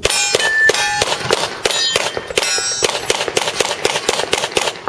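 Rapid handgun fire, several shots a second, with some hits ringing on steel targets.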